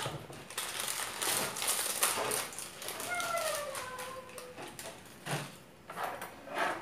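Plastic wrapping of a packet of roasted seaweed sheets crinkling and crackling as it is opened and the sheets are pulled out. A short falling voice sound comes about three seconds in.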